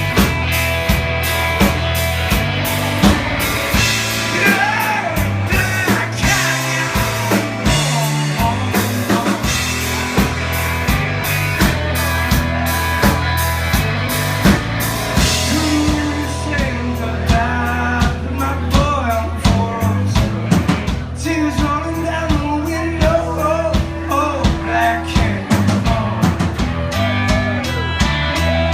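Live rock band playing: drum kit keeping a steady beat under sustained bass and other instruments, with a singing voice.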